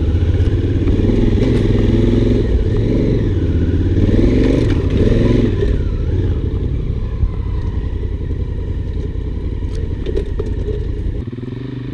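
Honda Africa Twin's parallel-twin engine pulling on a dirt trail, its note rising and falling with the throttle, over rattle and clatter from the bike on rough ground. Near the end it eases off to a quieter note.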